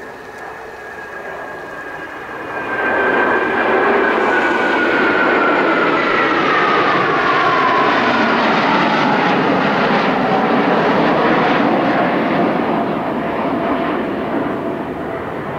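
A formation of five F-15J Eagle twin-engine jet fighters flying over. The jet-engine roar swells sharply about three seconds in, stays loud, and eases near the end. A high whine slides steadily down in pitch as the jets pass.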